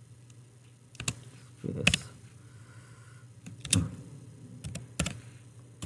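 Computer keyboard keystrokes: about half a dozen separate key clicks at uneven intervals as a MATLAB command is typed.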